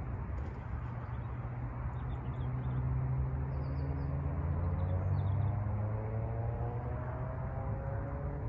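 Distant engine drone, a low steady hum, with a fainter pitched tone rising slowly from a few seconds in. Faint, brief bird chirps come over it.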